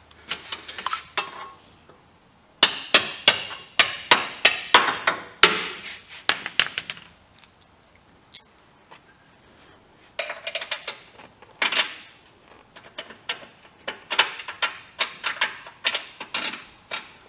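Metal bolts clinking and tapping against the steel seat-slider brackets and frame as they are worked through the mounting holes: irregular flurries of sharp metallic clicks with short pauses between them.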